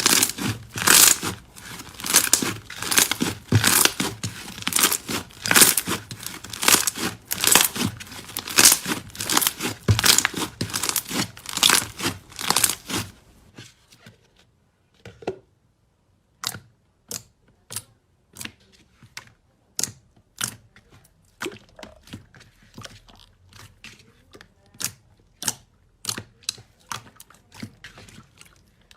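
Slime being handled and squeezed, giving dense rapid crackling and popping for about the first thirteen seconds. After a short pause, sparser sharp pops and clicks follow.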